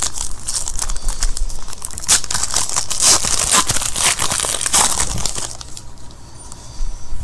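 Foil wrapper of a Panini Certified football card pack being torn open and crinkled by hand: a dense crackling rustle that thins out about two-thirds of the way through as the cards are pulled out.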